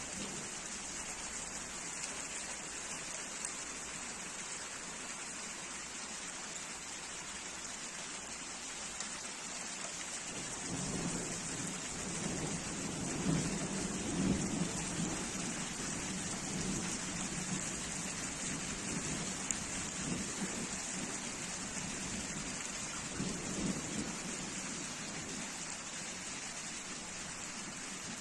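Heavy rain pouring steadily onto pavement and soaked ground. A rolling rumble of thunder sets in about ten seconds in, swells twice and fades before the end.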